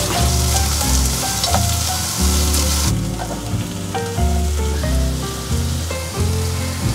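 Chopped red onion sizzling as it goes into hot oil and garlic in a pot, a dense frying hiss that cuts off abruptly about three seconds in, after which the frying is much quieter. Background music with a steady bass line plays throughout.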